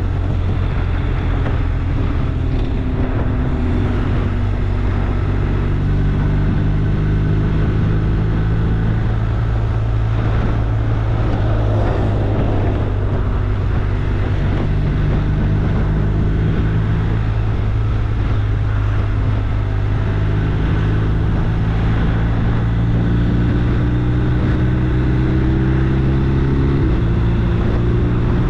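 An engine running steadily at a constant, fairly loud level, its pitch shifting slightly several times.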